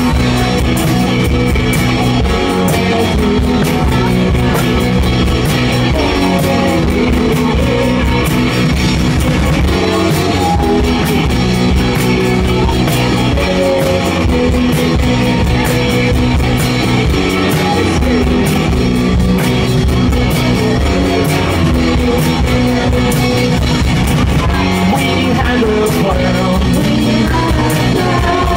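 Live indie rock band playing loud and steady: electric guitars and drum kit, with a tambourine shaken along. A singing voice comes in near the end.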